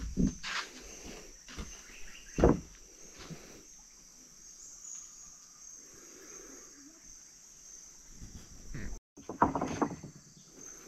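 Steady high-pitched insect chorus from the surrounding forest. A few knocks or steps sound over it, the loudest a thump about two and a half seconds in, with another cluster of knocks near the end.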